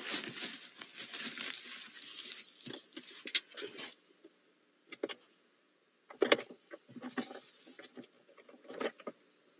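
Owl scrambling up off her eggs and out of the wooden nest box: a dense run of claw scrapes, wing brushes and rustling in the wood shavings for about four seconds, then a few scattered knocks and scratches on the box.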